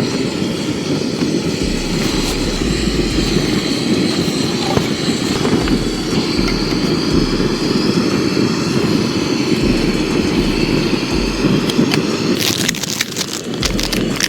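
Wind buffeting the microphone: a steady loud rush with low rumbling gusts that come and go. A quick run of crackling clicks near the end.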